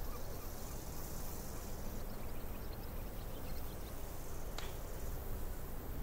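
Steady wash of surf breaking on the beach, with scattered faint high chirps and a single sharp click about four and a half seconds in.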